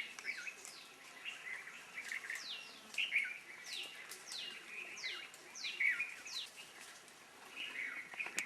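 Several wild birds calling: many short, high whistles that slide quickly downward, repeated over and over, mixed with chirps.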